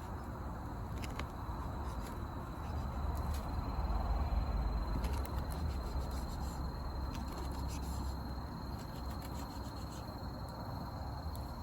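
Wood campfire crackling, with scattered sharp pops over a low, steady rumble. A thin, steady high tone runs under it from about three seconds in.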